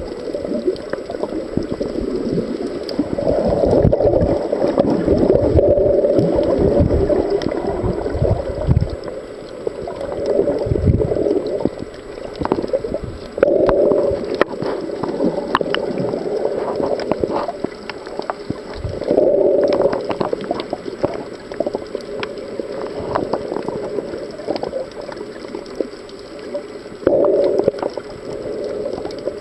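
Muffled underwater sound of water moving around the camera, with scattered crackling clicks. A louder rush of water swells up every six to eight seconds.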